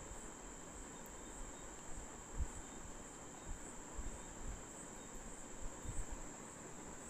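Steady high-pitched insect drone, with faint pulses about twice a second. Underneath it runs a low rumble with soft thumps, the loudest about two and a half seconds and six seconds in.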